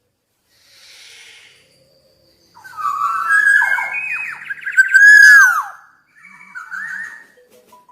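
Black-naped oriole singing: loud, fluty whistled phrases with notes that swoop and slide downward. One long phrase starts about two and a half seconds in, and a quieter phrase follows near the end.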